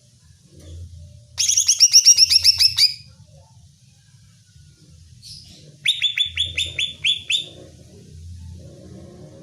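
Cucak ijo (leafbird) song: two loud bursts of rapid, repeated, sharp down-slurred notes, the first at about a second and a half, the second about six seconds in.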